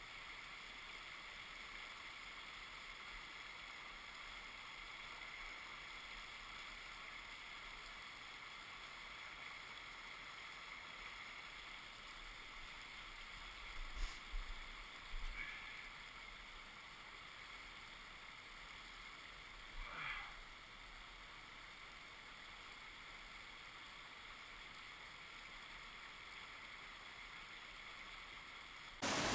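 Faint steady rush of creek water, with a few brief soft knocks or swishes about halfway through.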